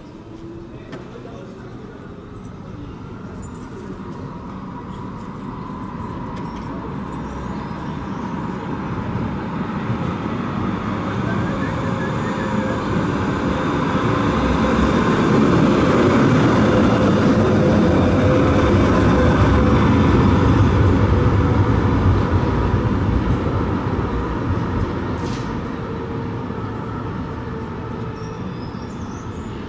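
Electric city tram running on street track, coming closer and passing by: a rumble of wheels on rail with a steady motor whine, swelling to its loudest about halfway through and then fading.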